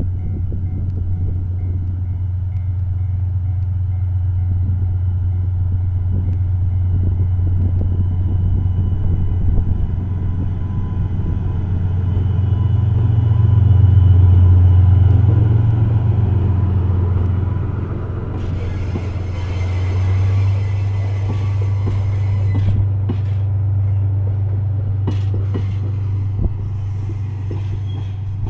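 JR Freight DF200 diesel-electric locomotive pulling away with a train of empty tank wagons: a deep, steady engine drone that swells to its loudest as the locomotive passes about halfway through, then eases as the wagons roll by.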